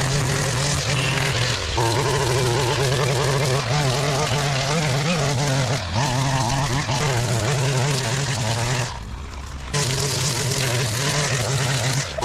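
Small petrol engine of lawn and garden equipment running steadily at working speed, with a wavering pitch as it works. The sound drops away for under a second about nine seconds in, then returns.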